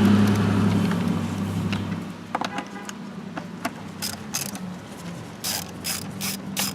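Ratchet wrench clicking in quick runs, with a few light metal clicks and knocks before it. A low vehicle hum fades out over the first two seconds.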